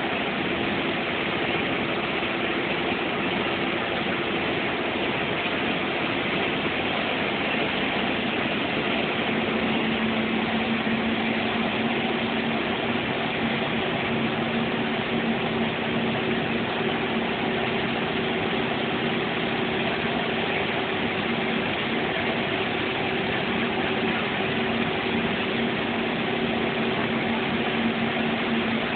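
Heavy vehicle's engine and road noise heard inside its cab while cruising on a highway: a steady drone whose hum shifts to a different pitch about eight seconds in.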